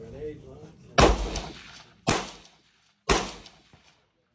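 Three rifle shots about a second apart, each with a short fading echo.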